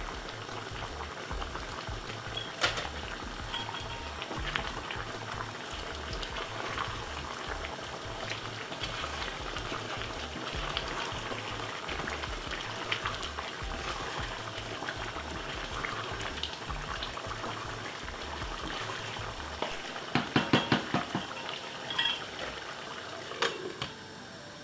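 A pot of stewed chicken simmering in its own juices, bubbling and crackling steadily. About twenty seconds in there is a quick run of sharp clattering knocks.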